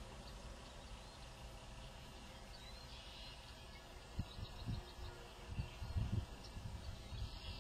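Faint outdoor background with a few faint bird chirps, and some low bumps in the second half.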